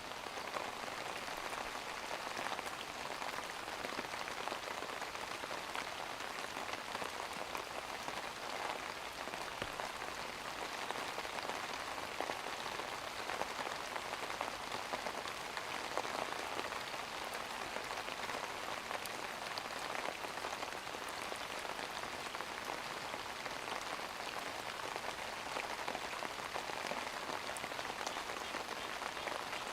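Steady rain falling: an even, dense patter of drops that does not let up.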